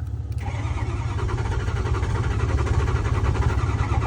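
A click right at the start, then a vehicle engine cranking on its starter motor with a fast, steady, even rhythm without firing up. It is the first start attempt after a brand-new fuel injector control module was fitted, and the engine 'wants to start'.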